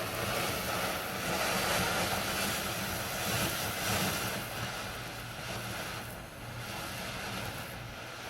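Ground fountain firework (a 'Bullwhip' fountain) spraying sparks with a steady rushing hiss, thinning somewhat about halfway through, with wind buffeting the microphone underneath.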